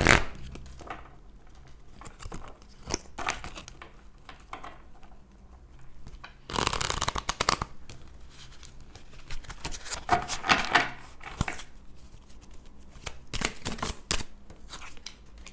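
A deck of oracle cards taken out of its cardboard box and shuffled by hand: irregular rustles, slides and soft taps of the cards, in several bursts, the longest about halfway through.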